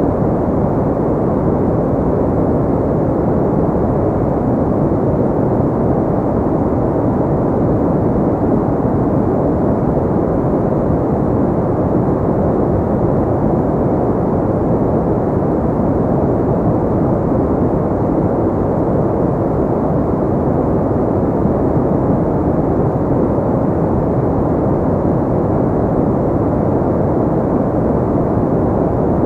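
Steady, deep rushing noise of a sleep 'white noise' track, muffled with little high end and even throughout, with no distinct events.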